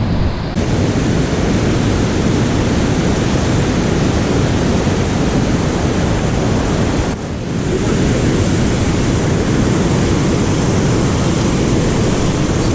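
Steady rushing of fast river water, with a brief dip about seven seconds in.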